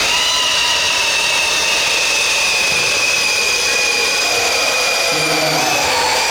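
Motor of an RC pulling truck or tractor running hard under load: a steady high-pitched whine that starts suddenly and sags slightly in pitch toward the end.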